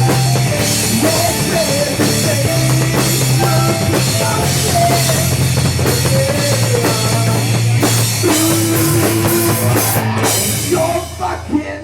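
Loud rock music with a drum kit, a steady bass and a melody line on top. About ten and a half seconds in, the cymbals and drums fall away and the music thins out.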